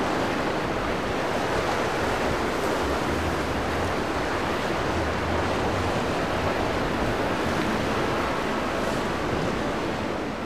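Choppy inlet waves breaking and rushing as a steady wash of surf, with wind buffeting the microphone.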